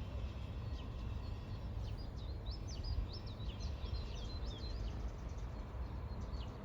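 Small songbirds chirping, many short quick notes coming thickest in the middle, over a steady low rumble.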